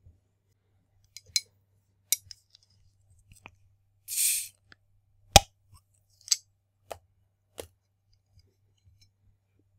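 A soda bottle and a drinking glass being handled: a series of clinks and clicks, a short hiss about four seconds in, and one sharp glass clink, the loudest sound, about five and a half seconds in.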